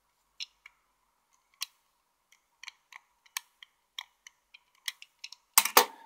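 Small, scattered clicks and ticks of a tiny metal crimp terminal from a JST RCY connector being worked with a small tool, lifting its locking barb. A louder, longer clatter comes near the end.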